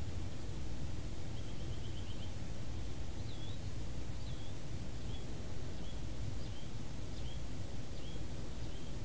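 Steady low hum of background noise with a small bird chirping faintly: a short trill about a second and a half in, then a string of short falling chirps about once a second.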